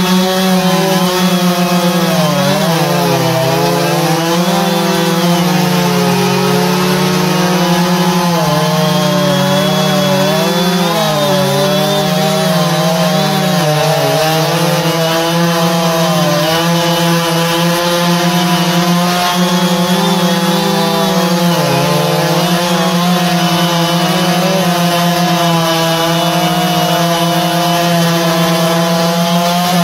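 Two-stroke Husqvarna chainsaw held at full throttle while cutting through a large log with a 20-inch 3/8 chain. The engine pitch repeatedly sags and recovers as the chain loads up in the cut.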